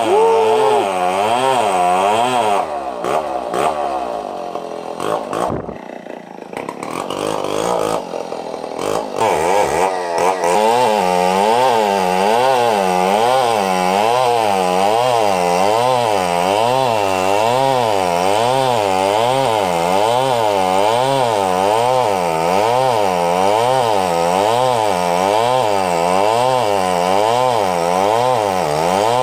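Large two-stroke chainsaw ripping lengthwise along a big log to cut a beam, running under load with its engine note rising and falling in a steady rhythm. The sound dips and wavers for a few seconds in the first third, then from about ten seconds in the saw runs steadily in the cut.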